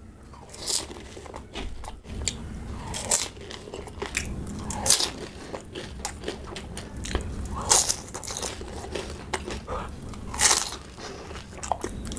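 Crunching and chewing of crisp pani puri (golgappa) shells and raw green chillies, with loud crunches every two to three seconds.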